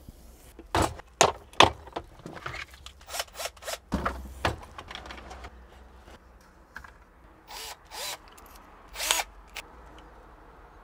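A run of separate clicks, knocks and clatters of tools being handled: a power drill and a plastic Bosch drill-bit case with its bits. There is no steady drilling.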